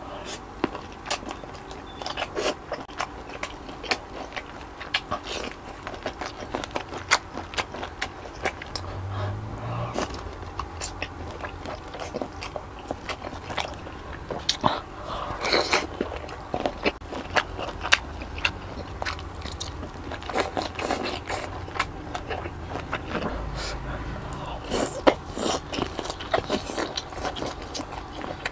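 Close-miked mouth sounds of a person biting and chewing saucy giant prawn meat: a steady run of wet smacking and short sharp clicks.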